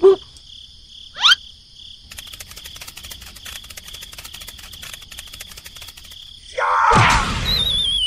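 Chirping crickets: a steady high trill with fast ticking. A quick rising glide cuts in about a second in, and near the end a loud noisy burst is followed by a wavering whistle that falls in pitch.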